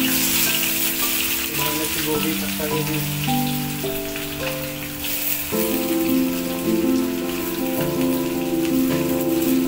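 Vegetables sizzling in hot oil in an iron wok after being tipped in: a steady, loud frying hiss. Background music with held notes plays along.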